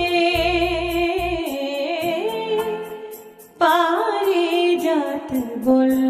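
Music from a Bengali devotional-style song: a held melodic line with vibrato over a steady, evenly spaced percussion pattern, with no words sung.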